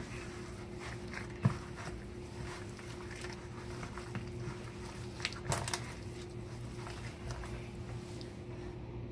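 Gloved hand tossing raw beef chunks in flour and seasoning in a plastic bowl: soft squishing and rustling with small clicks, a sharp knock about a second and a half in, and a few more clicks around five and a half seconds. A steady low hum runs underneath.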